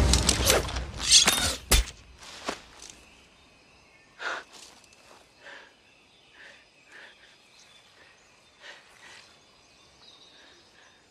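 A loud rush of noise with sharp knocks for about the first two seconds. Then quiet outdoor ambience with a few scattered faint rustles and soft short chirps.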